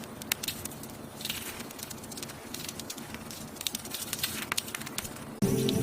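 Scattered light clicks and crackles over a steady faint hiss, ending in an abrupt cut to music near the end.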